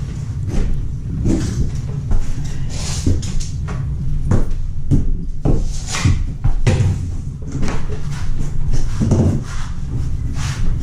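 Irregular knocks, taps and scrapes from tools and materials being handled during the work, over a steady low hum.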